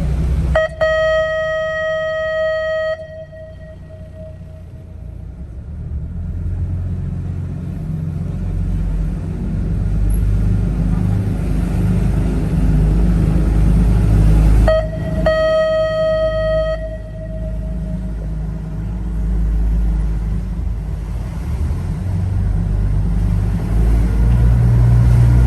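Sightseeing boat's engine rumbling steadily, with two long horn toots, one near the start and one about fifteen seconds in, each ending abruptly with a short echoing tail.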